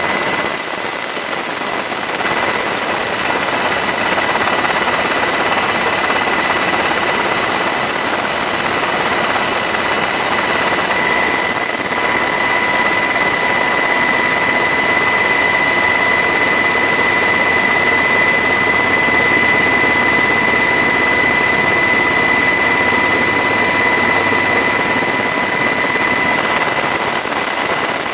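Helicopter noise heard from on board the aircraft: a steady, even rush with constant high-pitched whines, unchanging in level.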